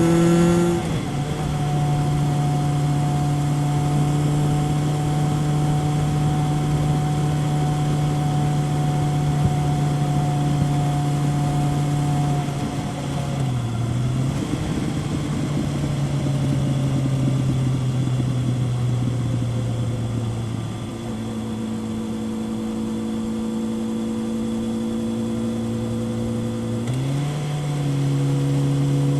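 2000 Kawasaki ZRX 1100 inline-four engine through a Yoshimura exhaust, heard onboard while riding at mostly steady revs. The engine note drops about a second in, dips and recovers midway, runs lower for a stretch, then climbs again near the end, over a steady rush of wind.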